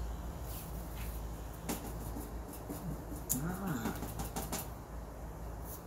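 Paintbrush dabbing and brushing against the canvas in several short scratchy strokes, over a steady low hum.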